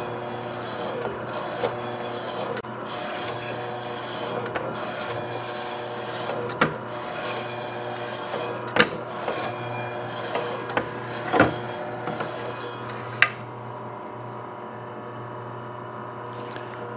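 A 320-watt KWS electric meat slicer runs with a steady motor hum while its spinning blade rasps through raw chicken breast as the carriage is pushed back and forth, with a few sharp clicks. Near the end the cutting stops, leaving only the motor hum.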